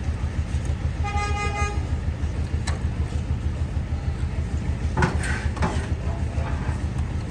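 A vehicle horn toots once, a single steady note lasting under a second, about a second in, over the steady low rumble of engines in street traffic.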